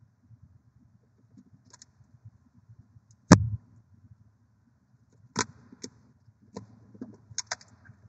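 Barn owl shifting and turning over her eggs in a wooden nest box, making sharp knocks and clicks. There is one loud knock about three seconds in, then a cluster of clicks and a little scratchy rustling near the end.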